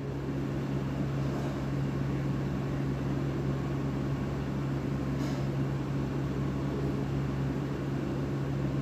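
A steady low hum over an even hiss, with no ticks or beats, holding level throughout.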